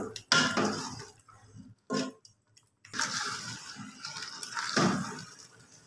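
A spoon stirring and scraping thick beef masala with tomato paste in a pot as it fries (bhuna), with wet squelching from the sauce in short bouts.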